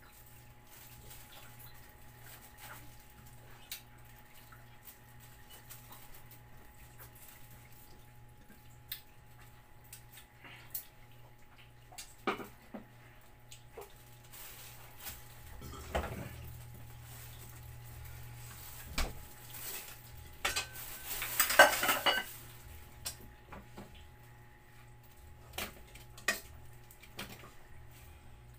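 Scattered clinks and knocks of a ceramic plate on a tiled floor as cats and a dog eat from it, with a louder, ringing clatter about two-thirds of the way through.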